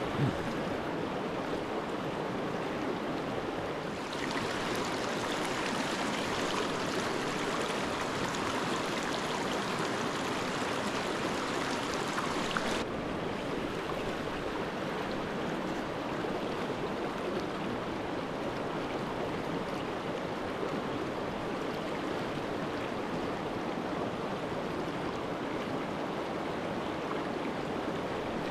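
Small rocky creek running over stones and riffles: a steady rush of flowing water, hissier for a stretch from about four to thirteen seconds in.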